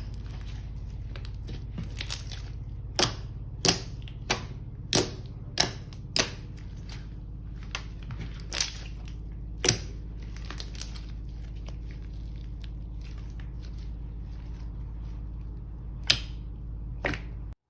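Slime being pressed and folded by hand, giving sharp popping clicks from trapped air at irregular intervals, about one a second, over a steady low hum. The sound cuts off suddenly near the end.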